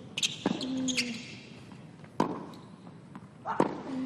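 Tennis rally on a hard court: sharp pops of racket strikes and ball bounces about every one and a half seconds, with sneakers squeaking and a short grunt from a player after a shot.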